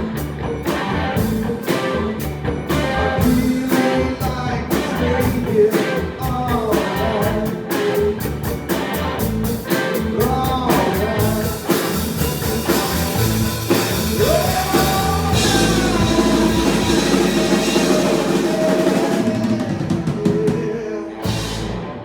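Rock music with a singing voice, drum kit and guitar. The steady drum beat gives way about halfway through to a long held chord under the voice, with a last hit near the end.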